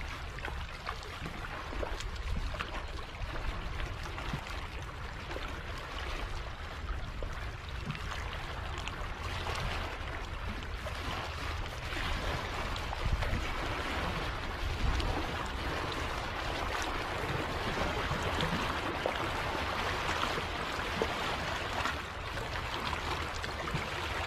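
Small harbour waves washing and splashing over a low rock ledge, a steady rushing wash, with a constant low rumble underneath.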